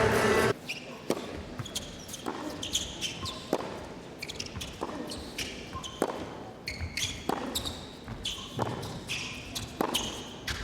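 Tennis rally on an indoor court: racket strikes on the ball roughly once a second, with shoes squeaking on the court surface between shots. A loud din at the start cuts off suddenly about half a second in.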